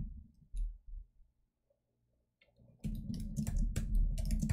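Keystrokes on a computer keyboard: a couple of isolated clicks, a pause, then a quick run of typing from about three seconds in.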